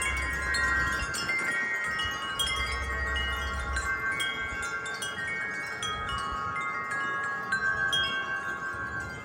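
Metal wind chimes ringing in a strong gust of wind, struck again and again so that many tones overlap and keep sounding. A low wind rumble comes in near the start and again a couple of seconds in.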